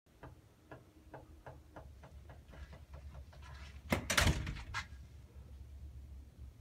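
A door opening and banging shut: a series of light clicks, then a loud clatter of knocks about four seconds in and one more a little under a second later.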